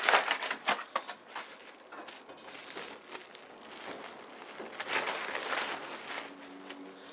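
Aluminium foil and plastic cling wrap crinkling and crackling as they are peeled off a hand, loudest at the start and again about five seconds in, then dying away.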